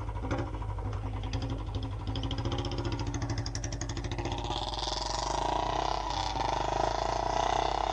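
Motorcycle engine running at low speed with an even, rapid pulse as the bike rolls forward. About halfway through, a louder, steadier higher sound joins it.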